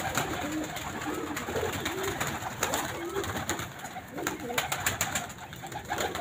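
Domestic pigeons cooing repeatedly in a flock, with a few sharp wing flaps as birds flutter up and take off inside the wire-mesh loft.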